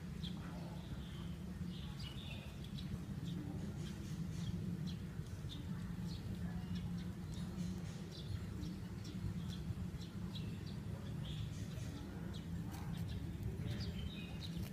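Short, scattered bird chirps over a steady low rumble.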